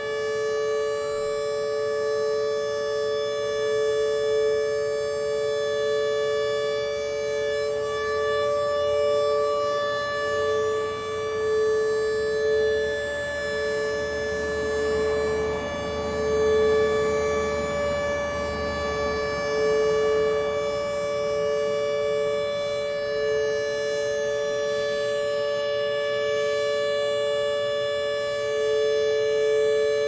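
Federal Signal Model 1 electromechanical warning siren holding a steady tone, blending with other outdoor warning sirens across town. A car passes about halfway through.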